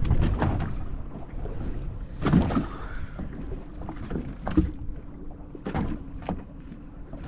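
Fish being tossed one by one into a plastic crate of fish, landing with irregular thumps, about five in all. Under them runs the steady low rumble of a boat at sea with wind.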